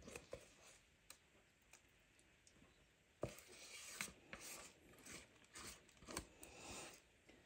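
Faint scraping and soft clicks of a spoon working cream cheese mixture out of a mixing bowl, dolloping it onto cake batter. The sounds gather in the second half.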